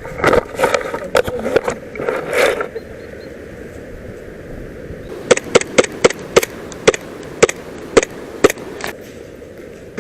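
Airsoft electric gun fired in single shots: about a dozen sharp snaps over three seconds, a few a second. This follows a couple of seconds of clattering knocks at the start.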